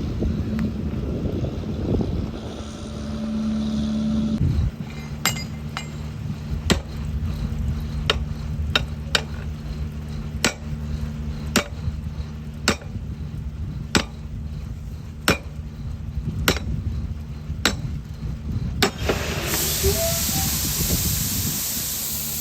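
Construction machinery engine running steadily, with sharp metallic clinks about once a second, then a loud steady hiss starting near the end.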